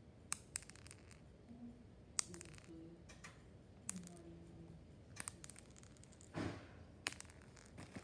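Fruit Loops cereal pieces dropped onto a hard wood-look floor, each landing with a light, sharp click, about one a second. There is a brief rustle about six seconds in.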